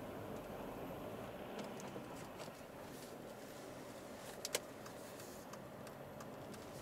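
Alfa Romeo 159's 1.9 JTDM four-cylinder turbodiesel and tyre noise heard from inside the cabin while driving at city speed, a steady low hum. A few faint clicks, with one sharper click about four and a half seconds in.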